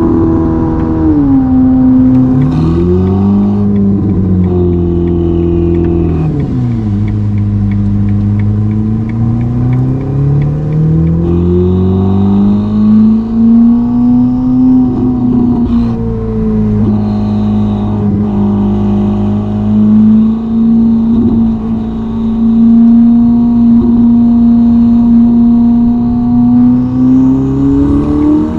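Ferrari SF90's twin-turbo V8 through a Novitec sport exhaust, heard from inside the cabin while cruising at speed. The engine note drops and rises a few times in the first seven seconds, then holds a steady drone with slow swells, and climbs again near the end.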